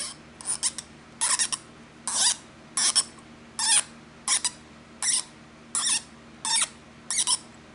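Brass adjustment orifice in a U.S. Divers Calypso IV first stage squeaking in its threads as it is turned out with an Allen wrench, in about eleven short high squeals, roughly one every 0.7 s, one per turn of the key. The squealing comes from corrosion on the threads, which make it hard to turn.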